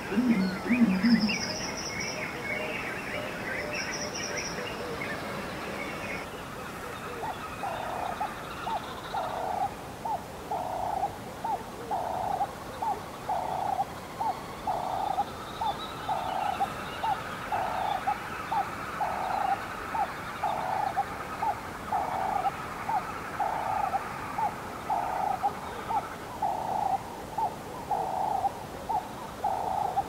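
Wildlife sounds: birds chirping for the first few seconds, then an animal call at one pitch repeating about once a second.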